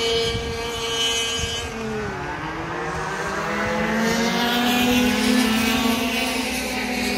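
Two-stroke engines of junior racing karts running on the circuit. Their pitch drops about two seconds in as they come off the throttle, then rises again as they accelerate.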